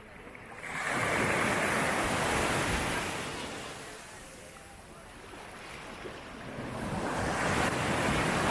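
Mediterranean sea waves washing onto the beach: a rush of surf that swells about a second in, dies down, then builds again with the next wave near the end.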